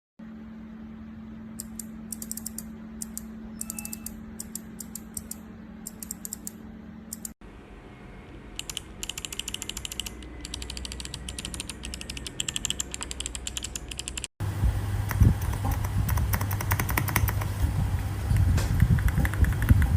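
Mechanical keyboard with Kailh Box White V2 clicky switches being typed on: crisp clicks in quick runs. The sound is edited into three takes that cut off abruptly about seven and fourteen seconds in. The last take is the loudest, with a deeper thud under each click and a steady low hum.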